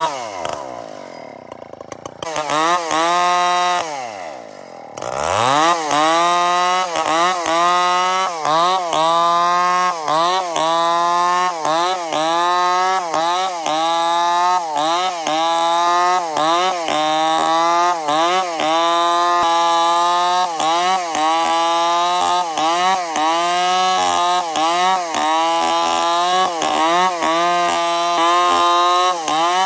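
Chainsaw engine running loud, its pitch rising and falling again and again, about once a second. In the first few seconds the pitch sags and picks up again.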